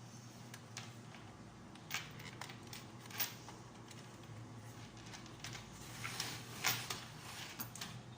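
Parts of a toy horse-race game being handled and fitted back together: scattered clicks, light knocks and short scrapes, the loudest about two, three and six-and-a-half seconds in, over a low steady hum.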